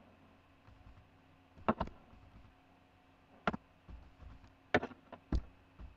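Computer keyboard keystrokes: about seven separate, sharp key clicks, some in quick pairs, as commands are typed into a command prompt.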